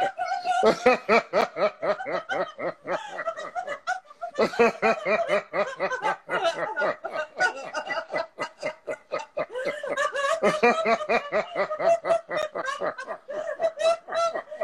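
Two people laughing hard and without pause in rapid 'ha-ha-ha' pulses: deliberate, sustained laughter-yoga laughter. There is a brief let-up about four seconds in.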